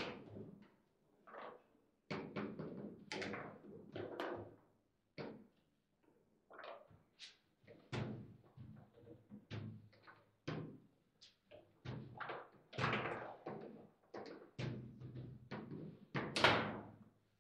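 Table football in play: the ball is knocked and shot around by the plastic figures on the rods, giving irregular knocks, clacks and thuds of ball, figures and rods. One hard strike near the end is the loudest.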